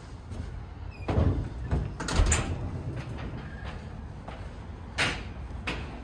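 A door being handled: a cluster of clunks and rattles, loudest between one and two and a half seconds in, then two sharp knocks near the end.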